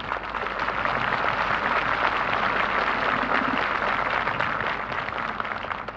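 Large crowd applauding, rising at once and holding steady, then thinning out near the end.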